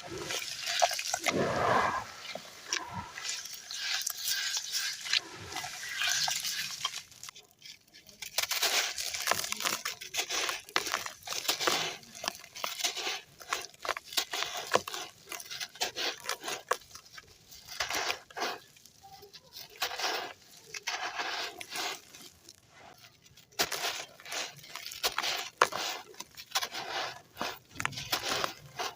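Handmade clumps of gritty red sand crumbling and breaking up in water: a dense run of crunchy crackles and wet gritty sounds, with a couple of brief pauses.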